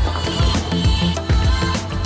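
Music with a deep held bass line and a punchy drum beat.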